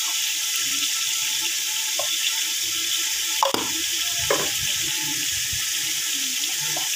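Tomato masala with oil sizzling and bubbling in a metal pot, a steady hiss, with a few short knocks about two, three and a half and four seconds in.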